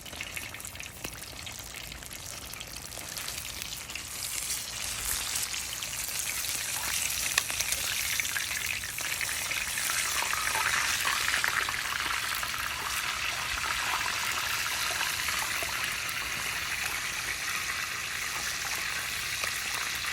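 Catfish frying in oil in a skillet: a steady sizzle with fine crackling, getting louder about four seconds in.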